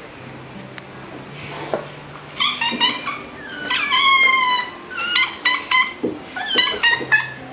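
Young tabby cat meowing repeatedly: a quick run of short meows starting a couple of seconds in, one longer drawn-out meow about four seconds in, then more short meows.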